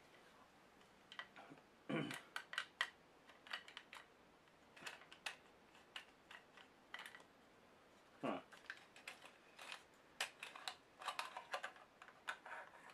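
Scattered faint clicks and knocks from a compact studio lamp head and its stand being handled and turned, plastic and metal parts clicking against each other. Two louder knocks come about two and eight seconds in.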